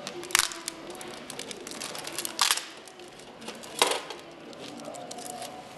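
Small plastic parts bag crinkling and crackling as hands work it open, with three louder sharp crackles about half a second, two and a half and four seconds in.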